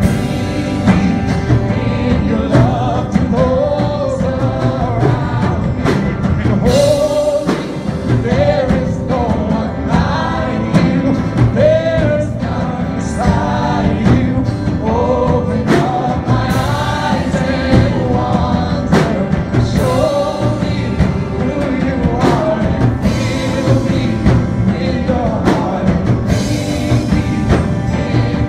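A live worship band: singers on microphones over electric guitar and full band, with sharp crashes every few seconds.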